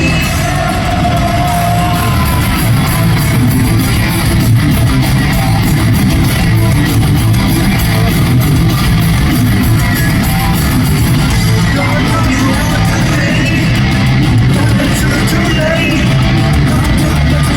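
Heavy metal band playing live: distorted electric guitars over bass and drums, loud and dense, with a few sliding guitar notes.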